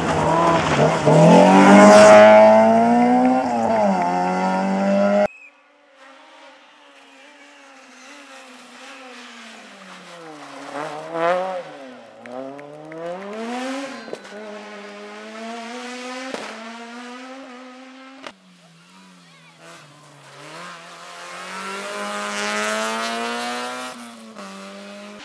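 Rally car engines revving hard as the cars corner and pull away, the pitch falling and rising again and again with lifts and gear changes. Several cars are heard one after another in separate cuts. The first car is loudest and cuts off suddenly about five seconds in, and the later cars sound farther off.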